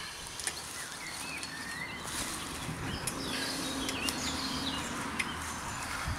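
Small birds chirping in the background, with a few faint clicks and a low steady hum in the middle.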